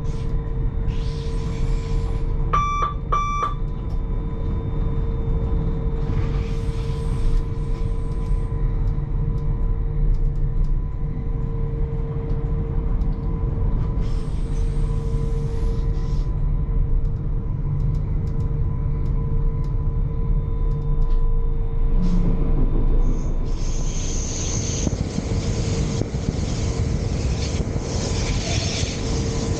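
Electric train running along the track, a steady rumble with a steady hum from the drive. About three seconds in, two short electronic beeps sound from the cab equipment, and from about twenty-three seconds on a louder hissing rush joins the rumble.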